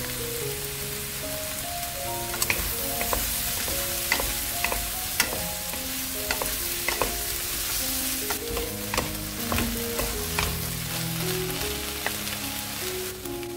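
Sliced onions sizzling in hot oil in a nonstick pan while being stirred and tossed with two wooden spatulas, which knock and scrape against the pan in a string of sharp taps.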